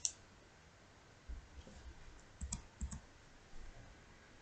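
A handful of faint, scattered clicks from a computer mouse and keyboard as text is selected and copied for pasting.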